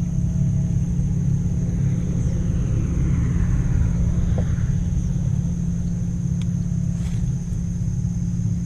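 Boat motor running steadily, a low, even rumble.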